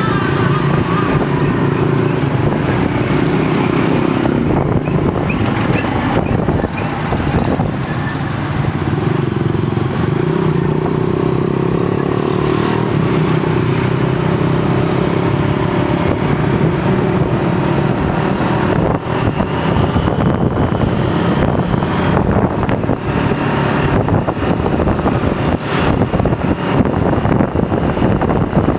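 Motorcycle taxi's engine running under way, heard from the passenger seat, its note drifting up and down with speed over steady road and wind noise.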